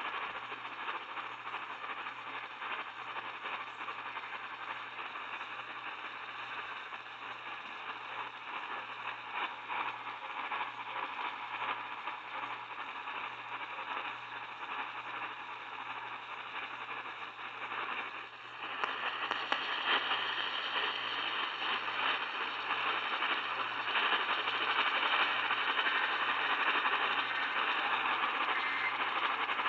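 Radio receiver static: a steady hiss with fine crackles and a low hum underneath. It dips briefly about two-thirds of the way in, then comes back louder and brighter.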